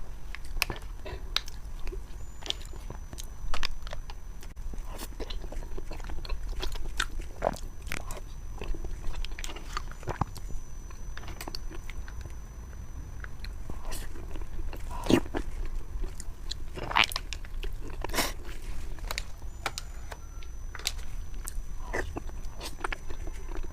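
Close-miked eating: biting and chewing a heated pastry, with irregular crisp crunches and clicks.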